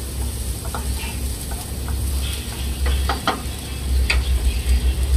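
Diced carrots, green beans and onion sizzling in oil in a metal pan on a gas stove, being lightly fried so they stay crunchy. A steady low hum runs underneath, with a few light clicks scattered through.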